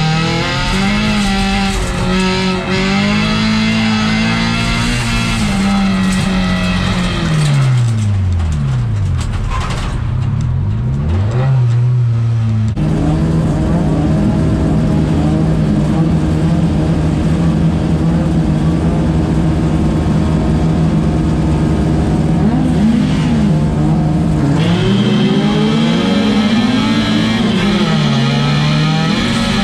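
In-car sound of a folk race car's engine. For the first dozen seconds the revs rise and fall as the car is driven hard, with several long drops in pitch about 8–12 s in. After an abrupt cut the engine holds a steady note, with a few quick rev blips a little past the middle and revs rising and falling again near the end.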